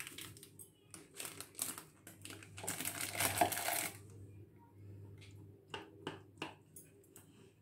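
Scattered light clicks and taps of a metal spoon against a plastic bowl, with a short rustle about three seconds in, as food colouring is worked into syrupy cubes.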